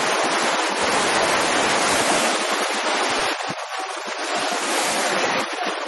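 Small surf breaking and washing up a sandy beach, a steady rushing hiss, with wind rumbling on the camcorder microphone. The low rumble drops away about halfway through.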